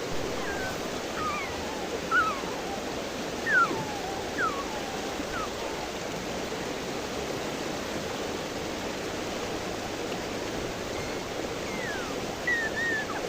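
River water rushing steadily. A scattered series of short calls, each sliding down in pitch, sounds over it, most of them in the first few seconds and a couple more near the end.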